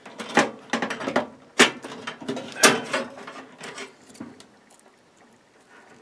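Plastic clicks and rattles of a microwave oven lamp's socket being pried and pulled loose from its mounting in the housing, with three sharp snaps in the first three seconds, then only faint handling.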